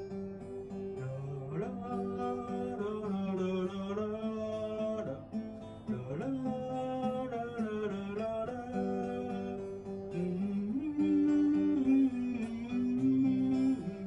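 Music: an acoustic guitar playing while a voice sings a melody over it.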